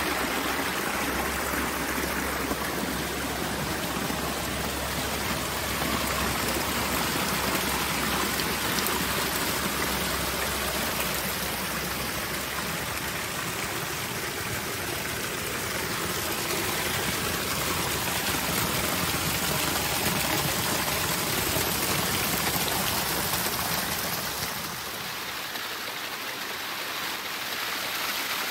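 Water from a koi pond's waterfall cascading and splashing over rocks in a steady rush, a little quieter near the end.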